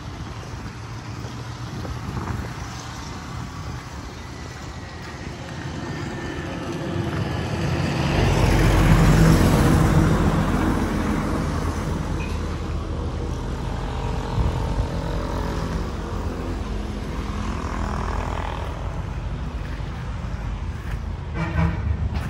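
A motor vehicle passing close by. Its engine and tyre noise build to a peak about nine seconds in, then fade as the engine pitch drops.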